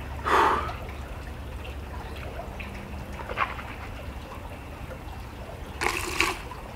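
A man breathing out hard in pain from very spicy food: a short breath near the start, then a longer, harsher hiss of breath about six seconds in as he doubles over, over a low steady hum.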